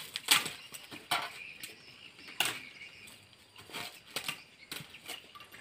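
A machete chopping chunks of mangrove charcoal, brittle charcoal cracking and splitting under irregular sharp strikes, about one or two a second.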